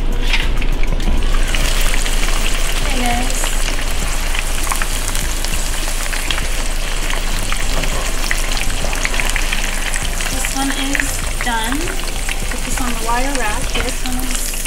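Panko-breaded chicken breasts frying in hot vegetable oil (about 350–375 °F) in a skillet: a steady, dense sizzle and crackle.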